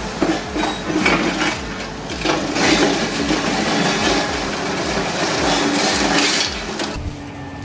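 Heavy machine crushing material, with irregular cracking, knocking and clinking of breaking pieces. About seven seconds in it gives way to a quieter, steady hum.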